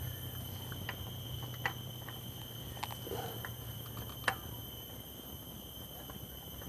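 Faint clicks and light scrapes as a spin-on oil filter is turned by hand onto its threaded mount on a Suzuki K6A engine, a few sharp ticks standing out. A low steady hum sits underneath and fades about halfway.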